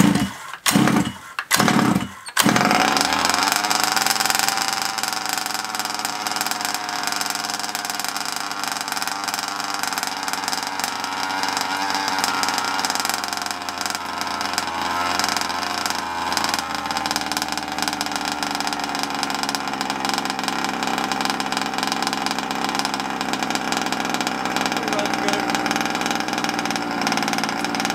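Petrol RC buggy's small two-stroke engine starting: a few short bursts, then it catches about two seconds in and runs steadily and smoothly.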